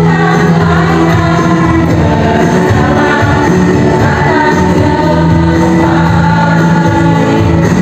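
Women's choir singing in harmony, loud and continuous, with long held notes.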